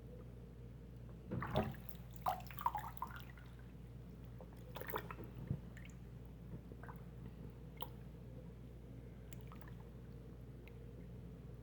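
Water squelching and gurgling in a clogged sink drain as it is pumped by hand to make suction, in a few short bursts early on and near the middle, then scattered drips.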